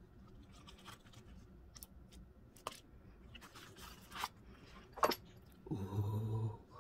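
A folding knife being handled as it comes out of its zippered pouch and plastic sleeve: light rustling and small clicks, with one sharp click about five seconds in. Near the end comes a short, steady low hum.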